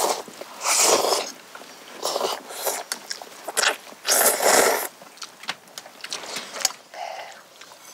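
Noodles being slurped, three loud slurps with short clicks in between.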